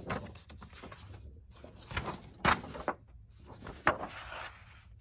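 A large paper book being handled: pages rustling and flapping, with a few sharp knocks, the loudest about two and a half seconds in and another near four seconds.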